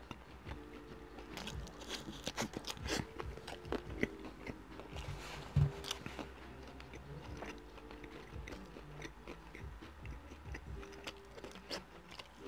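Close-miked chewing of fried shrimp: wet mouth clicks and crackly crunching as he bites and chews, with one low thump about halfway through.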